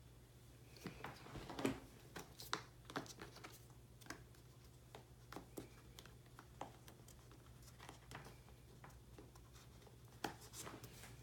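Faint handling of a leather strap being worked through a brass buckle on a waxed-canvas knife roll: scattered light clicks and rustles, with a sharper knock just under two seconds in.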